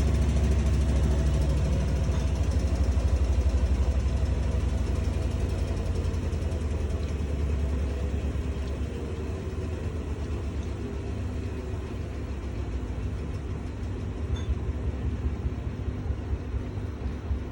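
Bosch washing machine running with a deep, steady rumble that eases off after about six seconds into a quieter, uneven churning. The uploader calls it a weird noise.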